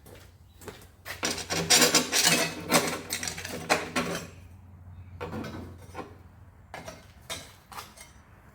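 Hand file scraping over steel weld: a quick run of rasping strokes for about three seconds, then a handful of single strokes and light metal clinks. The file is taking down excess weld bead.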